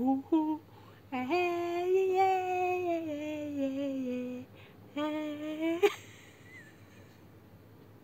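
A voice humming: a few short notes, then a long held note that slides slowly down in pitch, then a shorter note rising in pitch about five seconds in.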